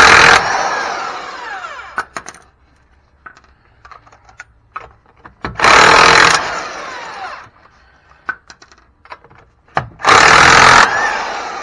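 Impact wrench hammering lug nuts loose on a car wheel in three short bursts, the first ending just after the start, the next about five and a half seconds in and the last about ten seconds in. Each burst trails off in a falling whine as the tool spins down. Light metallic clinks come between the bursts.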